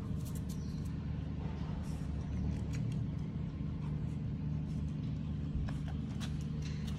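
A steady low mechanical hum, with faint scattered clicks over it.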